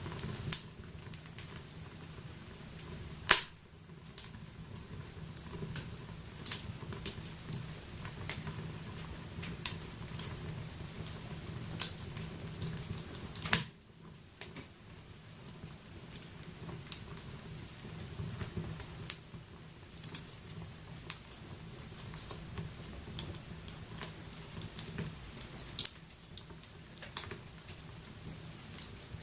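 Wood fire burning in a wood stove, crackling and popping irregularly over a low steady rumble, with two louder pops about three seconds and thirteen seconds in.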